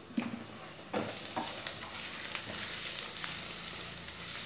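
Minced garlic sizzling as it browns in hot bacon fat in a nonstick frying pan while it is stirred with a plastic spatula. The sizzle grows louder about a second in, and a few light knocks of the spatula against the pan come in the first second and a half.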